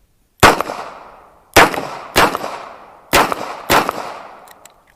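Five handgun shots: a single shot about half a second in, then two quick pairs, each shot ringing out briefly afterwards.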